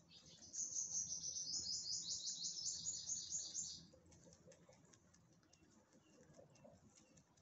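A bird singing a fast trill of high, evenly repeated notes for about three and a half seconds, the loudest sound here. Under it and after it, faint crisp ticking of rabbits chewing grass.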